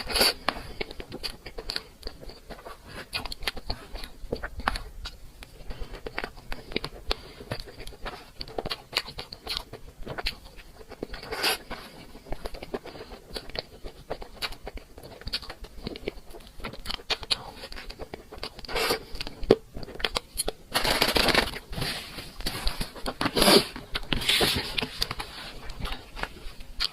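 Eating sounds of cake: many short chewing clicks and scrapes, with longer, louder scraping or rustling stretches near the end.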